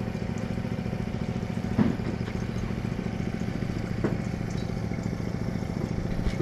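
An engine running steadily, a low, evenly pulsing hum, with two light knocks about two and four seconds in.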